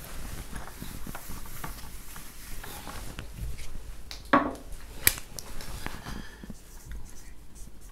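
A whiteboard being wiped with a duster, a soft rubbing, then a sharp knock about four seconds in and a click just after. A marker then starts squeaking faintly across the board.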